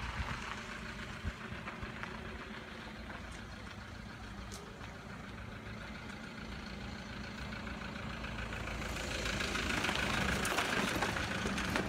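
A motor running steadily with a low hum, like an engine at idle; a hiss grows louder over the last few seconds.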